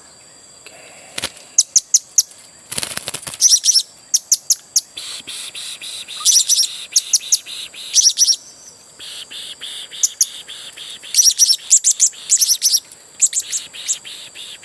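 Blue-crowned hanging parrots (serindit) calling: quick series of short, sharp, high-pitched chirps in groups of two to five, repeated throughout over a steady faint high whine. A brief rustle comes about three seconds in.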